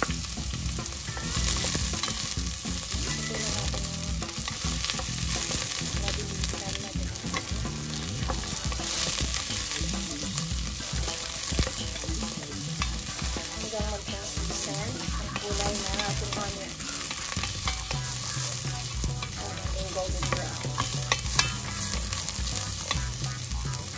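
Sliced onion and ginger sizzling in hot oil in a pot, sautéing toward golden, while a wooden spoon stirs them with occasional scrapes and taps against the pot.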